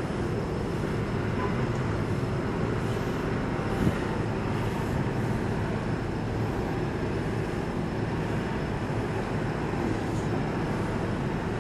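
Steady low rumble of the cruise ship AIDAblu under way, coming into port, with a faint steady high whine and a single brief knock about four seconds in.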